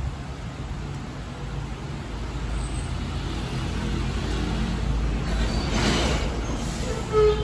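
Road traffic: a heavy vehicle's low engine rumble grows louder over several seconds as it passes, with a brief hiss about six seconds in. A horn begins to sound, one steady note, just before the end.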